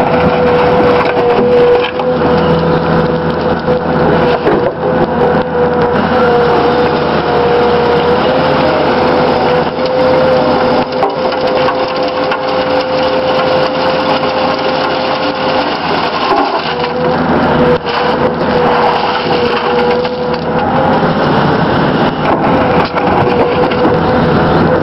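Excavator running while its hydraulic rotary screening bucket turns, tumbling soil and stones in the mesh drum: a constant gritty rattle over a steady whine.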